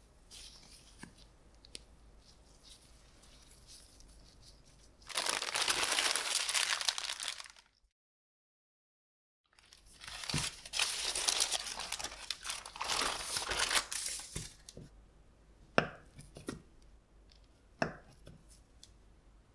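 Plastic wrap crinkling and rustling as it is pulled and wrapped around a slab of pastry dough, broken by a brief dead silence midway. Near the end a chef's knife chops down through the layered palmier dough twice, each a sharp knock.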